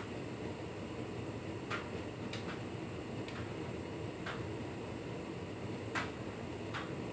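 Hotpoint Ultima S Line tumble dryer running, its drum turning with a steady rumble and hiss. Short light clicks come at uneven intervals, about six of them.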